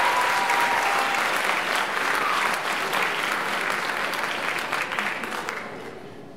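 Audience applauding, with some cheering voices in the first second; the applause dies away near the end.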